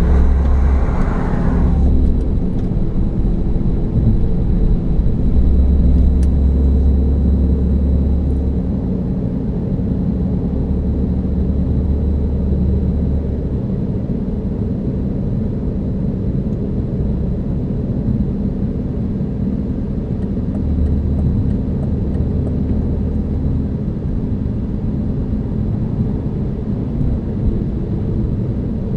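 A car engine idling steadily: a low, even rumble with a constant hum.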